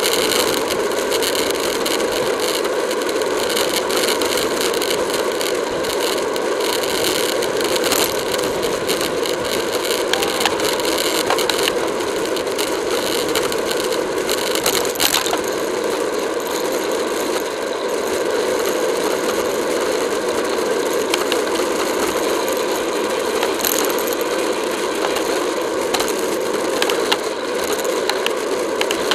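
Road bikes riding fast in a tight pack: steady wind and road noise on the bike-mounted camera, with rattling and scattered clicks from the bikes' drivetrains and freewheels.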